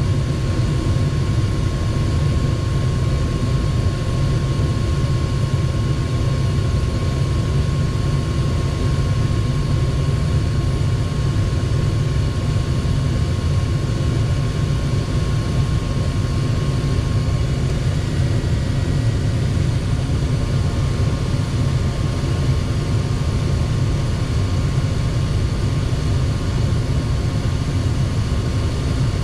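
Goodman gas furnace running steadily with its burners lit: a continuous low rumble with a faint steady whine. The burners are lighting and staying lit on a newly replaced hot surface igniter.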